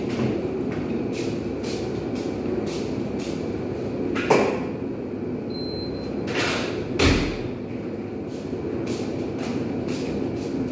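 Kitchen activity: a steady low background noise with two sharp knocks, about four and seven seconds in.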